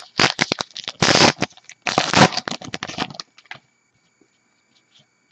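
Trading-card pack wrapper being torn open and crinkled by hand, a run of rapid crackling rustles lasting about three seconds, followed by a few faint ticks as the stack of cards is handled.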